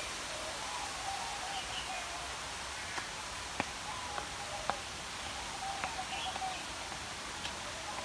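Tropical forest ambience: a steady hiss with faint, scattered bird chirps and a light trilling call, and a few soft clicks of footfalls on concrete steps.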